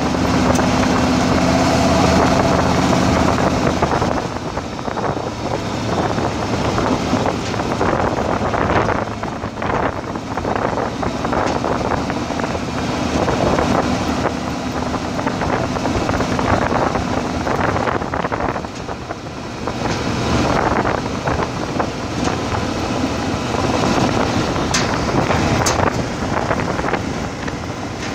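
Off-road vehicle driving along a gravel dirt road: a steady engine hum under continuous tyre and gravel noise, with uneven rumbling and buffeting throughout.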